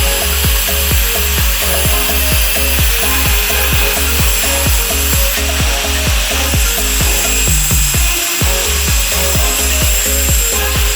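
Background music with a steady beat, over the continuous high hiss of a grinder grinding steel for a spark test.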